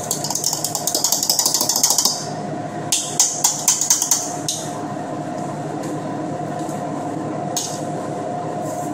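A utensil scraping rapidly against a stainless steel mixer bowl as thick, freshly frozen ice cream is stirred by hand, stopping about two seconds in, then a few slower scrapes. A steady machine hum with a held tone runs underneath.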